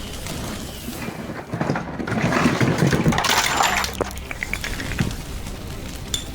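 Cartoon fireworks sound effects: a rush of hissing, crackling noise, loudest from about two to four seconds in, with a few sharp cracks after.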